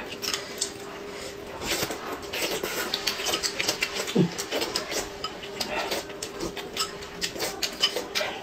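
Close-up eating sounds: wet chewing and lip smacking as roast chicken is torn apart by hand and eaten, with a spoon clinking against a glass cup. A faint steady hum runs underneath.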